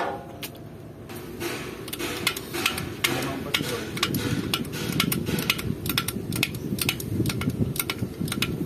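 Hydraulic bottle jack being hand-pumped to lift a truck axle: about three short clicks a second from the pump strokes over a steady low rumble, after one sharp knock at the start.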